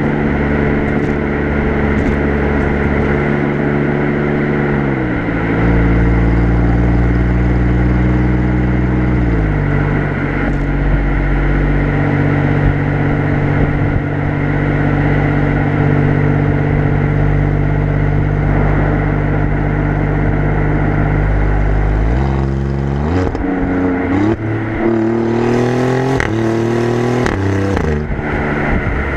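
Exhaust of an Alfa Romeo Giulia Quadrifoglio's twin-turbo V6, heard from behind the car while it drives on a motorway. It runs at a steady drone, drops in pitch twice in the first ten seconds, then near the end rises sharply and climbs and falls several times as the car accelerates.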